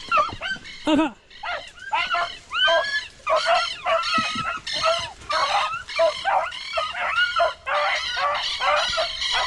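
A pack of beagles baying in full cry, many overlapping yelping howls at different pitches several times a second, with a short lull about a second in. It is the sound of hounds running a rabbit's trail.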